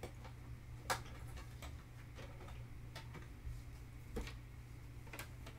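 A few light, irregularly spaced plastic clicks and taps from handling a plastic model-kit runner rack, over a faint steady low hum.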